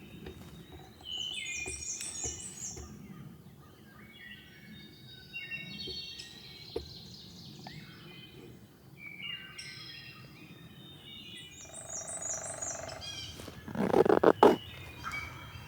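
Songbirds singing in spring woods, with repeated chirping phrases and high trills. A short, loud, rough burst comes about a second and a half before the end.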